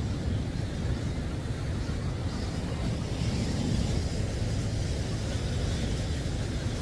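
Ocean surf breaking and washing against rocks: a steady rush of white water over a low, continuous rumble.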